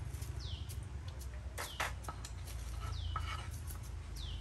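A bird chirping: four short falling calls about a second apart, over a steady low rumble, with a few light clicks near the middle.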